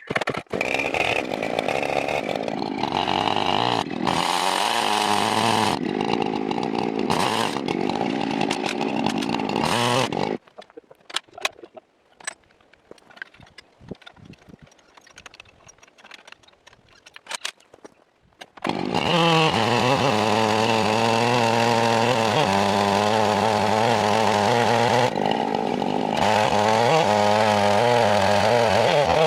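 Big Husqvarna two-stroke chainsaw running under load on a chainsaw mill, ripping redgum hardwood with a long bar and ripping chain, its pitch wavering as it cuts. The saw sound drops away for about eight seconds, leaving only faint ticks, then picks up again at full cut.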